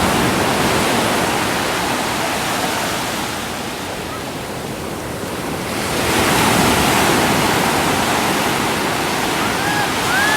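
Sea waves breaking on a beach. The surf eases off about four to five seconds in, then swells again.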